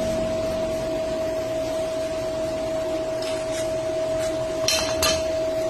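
A machine running with a steady hum, holding one constant tone over a hiss, with a few short taps in the second half.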